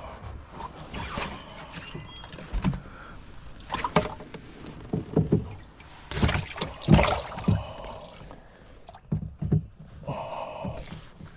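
Water splashing and sloshing in a boat's livewell as a crappie is put in by hand, with irregular splashes and knocks. The loudest come about six to seven and a half seconds in.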